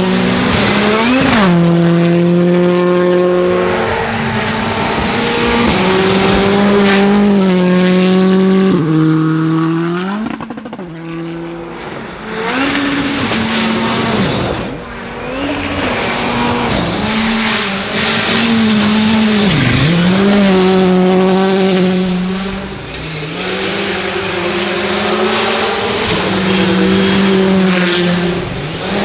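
Hyundai i20 R5 rally car's turbocharged four-cylinder engine at full attack, its pitch holding high and stepping through gear changes, with several brief lifts off the throttle where the engine note dips before pulling hard again.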